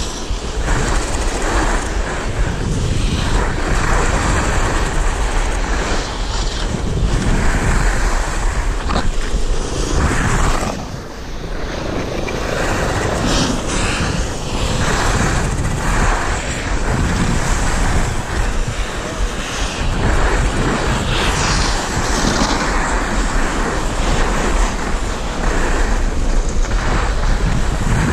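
Wind rushing over the microphone of a camera carried by a skier going downhill, mixed with the scrape of skis on packed snow, swelling and easing with the turns. There is a brief lull about eleven seconds in.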